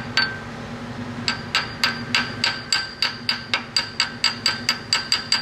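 Hammer tapping on metal: two strikes at the start, then a steady run of light strikes about four a second, each with a short metallic ring.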